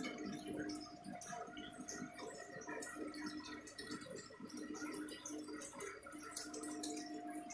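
Aquarium water pump running with a steady hum, while water bubbles and trickles at the tank's surface in a fine crackle of small drips and popping bubbles.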